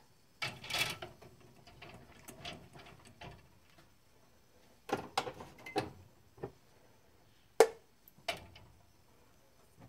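Glass mason jars being set down into a metal pressure canner, knocking and clinking against one another and the pot in a scatter of sharp knocks. There is a small cluster about halfway through, and the sharpest knock comes near three-quarters of the way in.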